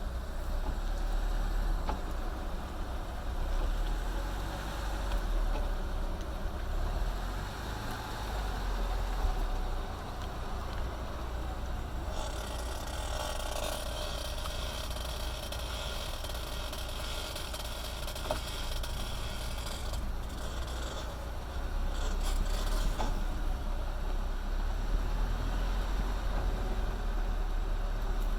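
Chevrolet Niva's front left wheel creaking, a repeated mechanical squeak over a steady low rumble. A hiss joins for several seconds midway.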